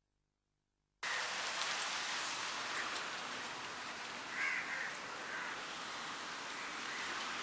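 Dead silence for about a second, then a steady hiss of background ambience cuts in abruptly and runs on evenly, with a brief faint chirp about four and a half seconds in.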